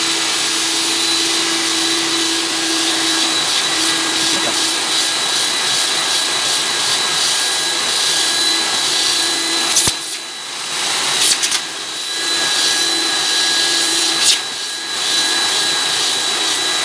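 Upholstery extractor machine running on suction to dry an upholstered armchair, pulling the sprayed cleaning liquid back out of the fabric through its hand nozzle. It makes a steady, loud vacuum-motor whine, which dips briefly a few times in the second half with a few short clicks.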